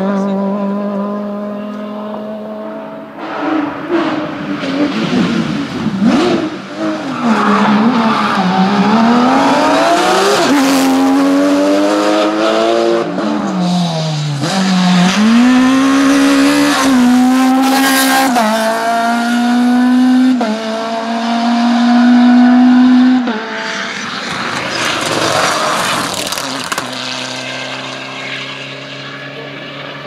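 Rally car engines at full throttle on a stage, revs climbing and dropping sharply with quick gear changes. A Peugeot 306 rally car approaches hard, its engine loudest about two thirds through, then the sound fades as cars move off.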